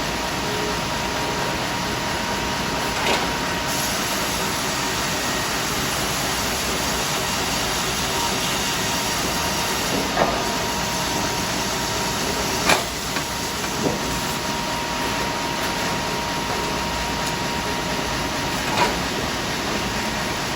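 Double-cut band sawmill running with a steady mechanical noise and a faint high whine, broken by a few sharp knocks scattered through.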